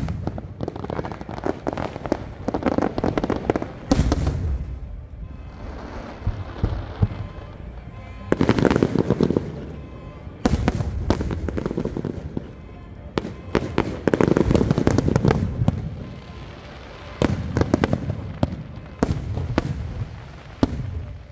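Aerial fireworks shells bursting in a rapid volley: many sharp bangs in quick succession, coming in loud clusters every few seconds.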